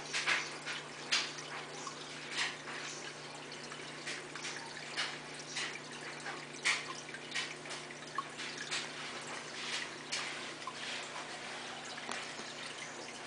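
Aquarium filter water splashing and dripping at the surface of the tank in irregular little splashes, over a steady low hum.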